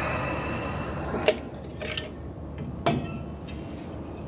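A few light metal clicks and knocks, roughly one a second, from rear drum brake shoes and their springs being handled, over a steady background hiss.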